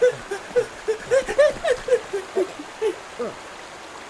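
A cartoon character's voice giving a quick run of short, pitched, giggle-like sounds, about four a second, stopping about three seconds in.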